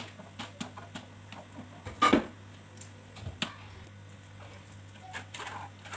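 Plastic slotted scoop scraping and tapping against a plastic colander as blended red pepper purée is pressed through it to strain out the seeds: a series of light clicks, with one louder knock and scrape about two seconds in.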